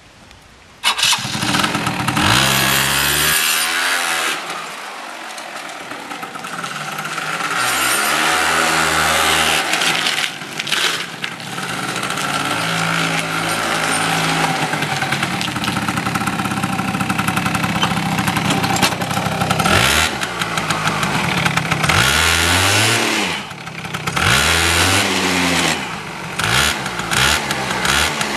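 RS90 scooter engine started, catching about a second in, then running and being ridden, with the revs rising and falling repeatedly as the throttle is opened and closed, several quick blips near the end.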